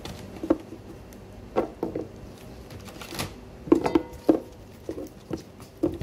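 Irregular light knocks and taps on a kitchen work surface as soft cheese is cut into four pieces and handled. There are about ten of them, bunched around the middle, with one brief crinkle a little after three seconds in.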